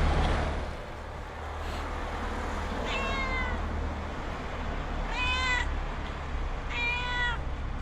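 A stray cat meowing three times, about two seconds apart. Each meow is short and slides down in pitch, over a low steady rumble.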